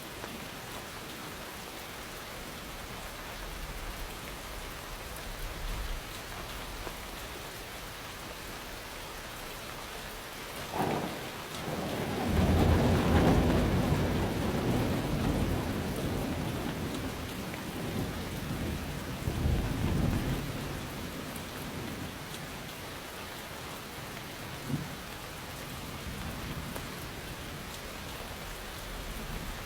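Steady rain falling, with thunder: a sharp crack about eleven seconds in, then a long, loud rolling rumble that swells again a few seconds later and fades back into the rain.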